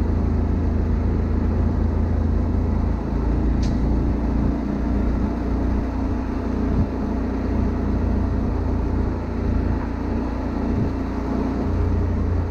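Honda Monkey 125 motorcycle under way at about 40 to 55 km/h, its single-cylinder engine running steadily under a continuous low rumble.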